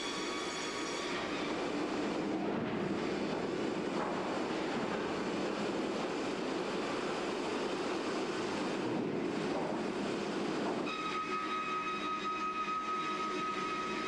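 Kara circular sawmill line running. A high steady whine at the start gives way about a second in to a rougher, noisier machine sound, and the whine returns near the end.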